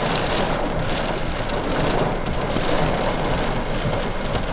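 Thunderstorm rain falling steadily, an even continuous hiss.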